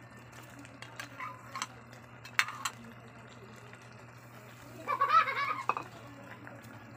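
A few sharp clinks and knocks as raw shrimp are tipped from a bowl into a stainless steel pot, over a steady low hum. About five seconds in comes a short high-pitched call, the loudest sound.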